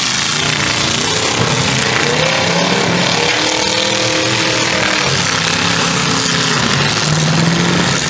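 Several full-size demolition derby cars' engines revving at once, loud and steady, their pitch rising and falling as the cars drive at each other in the arena.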